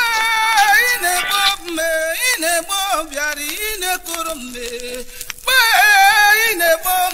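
A solo voice singing a melodic line, with gliding, wavering notes held briefly between breaks; it gets louder about five and a half seconds in.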